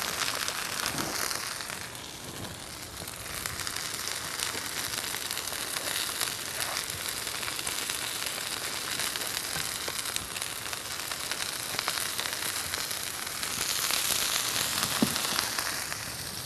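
Sliced bell peppers and pats of salted margarine frying in a skillet: a steady sizzle with fine crackling, a little louder near the end.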